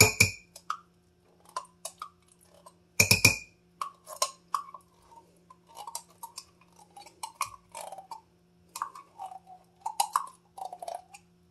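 Utensil knocking and scraping against a ceramic crock pot as tomato sauce is worked in. Two sharp knocks, one at the start and one about three seconds in, are followed by a run of small, irregular taps and scrapes.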